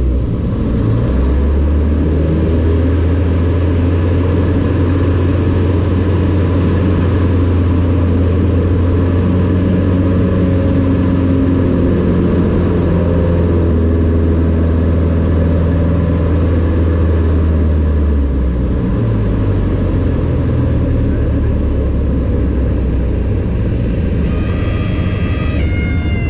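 Cessna 152 Aerobat's four-cylinder Lycoming engine and propeller droning steadily, heard from inside the cockpit during aerobatic manoeuvres. The engine note changes about two-thirds of the way through, and a brief high tone sounds near the end.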